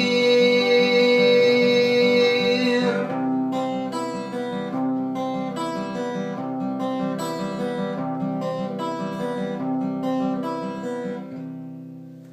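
Acoustic guitar closing a song: a long held note for about three seconds, then a run of picked notes that dies away near the end.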